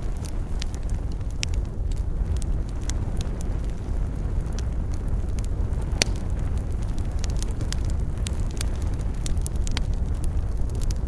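Wood campfire burning: irregular crackles and sharp pops from the burning wood, one louder pop about halfway through, over a steady low rumble.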